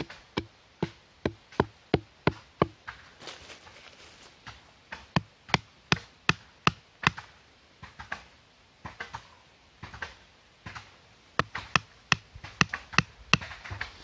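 Bamboo stake being pounded into the ground, struck first with a length of bamboo and then with a machete: sharp knocks about three a second, in four short runs with pauses between.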